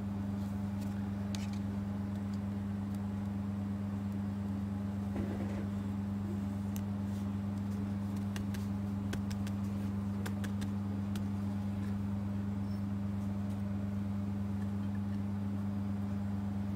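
Steady low electrical hum, with scattered faint clicks and rustles of trading cards being handled and stacked.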